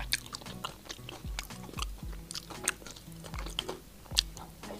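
Close-up wet chewing and lip-smacking of a mouthful of soft, sticky chocolate-filled glutinous rice dumpling, with many scattered sharp mouth clicks.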